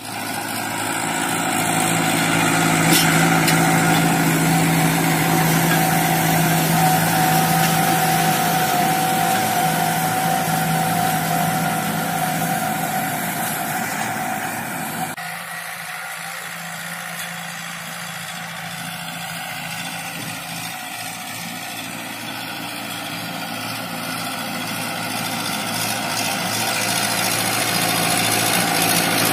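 TAFE 5900 DI tractor's diesel engine running steadily under load, pulling an 18-disc harrow through dry soil in first high gear at about 1800 rpm. It grows fainter about halfway through and louder again toward the end.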